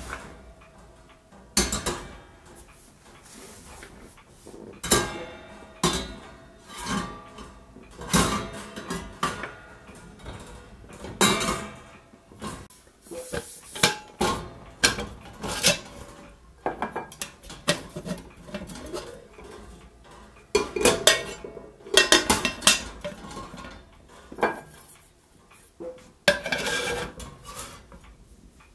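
Metal camp cookware being handled and set down on a stainless wire grill rack over a box stove: a mess tin and a small pot with lids, in a long series of separate clanks and knocks, some ringing briefly.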